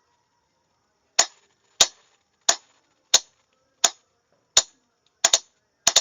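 Morse code sent as sharp clicks of a sending key pressed and released: three long presses, then two quick ones. This spells dash-dash-dash-dot-dot, the Morse figure 8.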